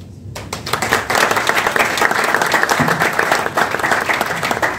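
Audience applauding: many people clapping together, starting about half a second in and holding steady.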